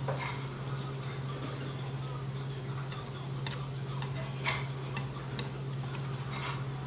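Eating at the table: scattered light clicks and ticks from chewing crunchy vegetables and a metal spoon and chopsticks touching the bowl, over a steady low hum.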